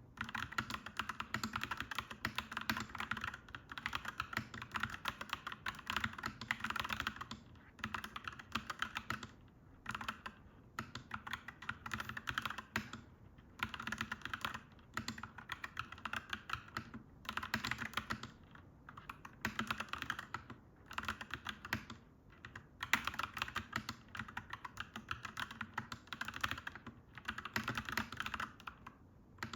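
Clacky mechanical keyboard being typed on in quick, continuous runs of keystrokes, with brief pauses every few seconds.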